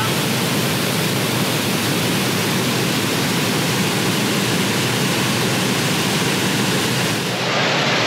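Waterfall plunging into a pool: a loud, steady rush of falling water, cut off abruptly just before the end.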